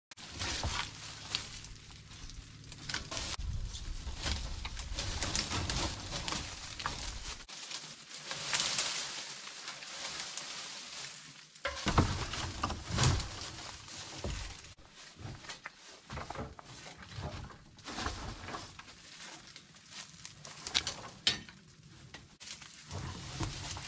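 Dry brush, leaves and branches rustling, crackling and snapping as overgrown undergrowth is cleared by hand and with a long-handled tool, with a few sharper knocks partway through.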